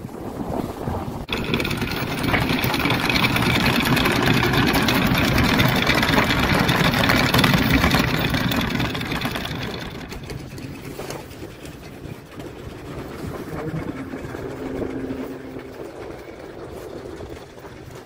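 Sailing yacht under way: a steady rush of water and wind along the hull. It starts abruptly about a second in, is loud for several seconds, then falls away to a softer wash about ten seconds in.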